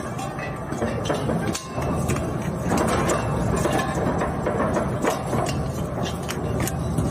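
Plastic shredder machine running and chewing plastic, a steady mechanical rumble with many irregular sharp cracks and clicks as the pieces are torn up.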